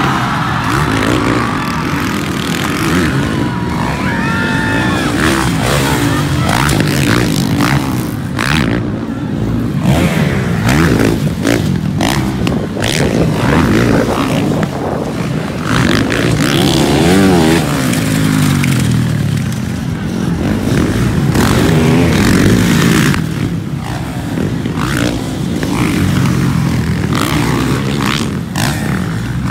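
Motocross dirt-bike engines revving up and down again and again, the pitch rising and falling as the bikes accelerate and back off on the track.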